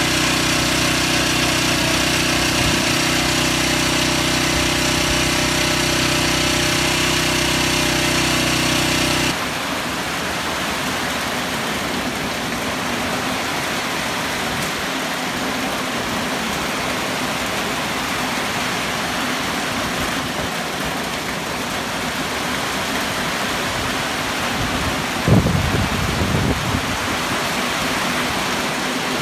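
Typhoon rain and wind, with a steady motor hum over it for the first nine seconds that cuts off abruptly. After that the hiss of heavy rain is left alone, and low gusts of wind buffet the microphone about twenty-five seconds in.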